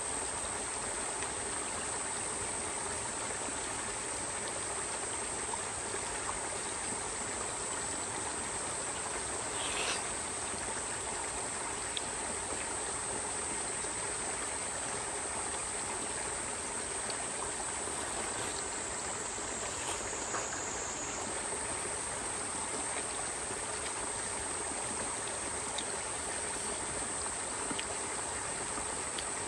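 Steady rush of flowing water, with a continuous high insect drone over it and a few faint clicks.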